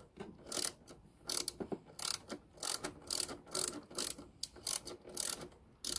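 Hand ratchet with an extension and T30 Torx bit clicking in short bursts, about two a second, as it backs screws out of a plastic protective cover.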